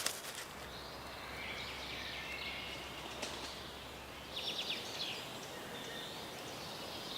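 Forest ambience with small birds singing in the background over a steady hiss, and a quick trill about halfway through.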